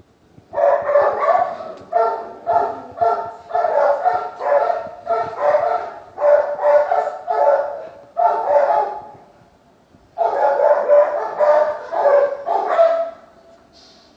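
A dog barking in quick, pitched barks, two or three a second, in two long runs with a pause of about a second between them; the second run ends in a short drawn-out note.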